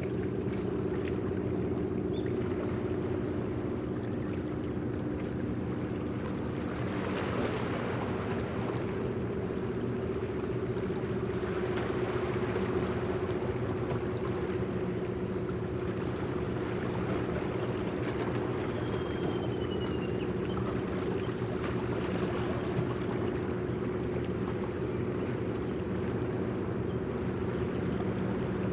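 Helicopter destroyer Kaga's gas-turbine propulsion heard from shore as the ship passes: a steady drone made of a few held low tones over a haze of noise.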